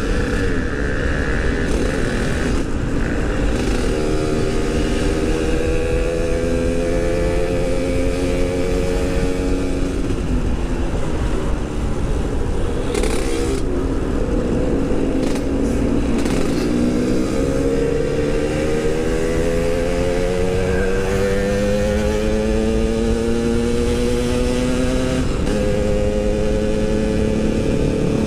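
Yamaha RX-King's 135 cc two-stroke single-cylinder engine riding under way. Its pitch climbs for several seconds, drops back around the middle, then climbs steadily again as the bike picks up speed.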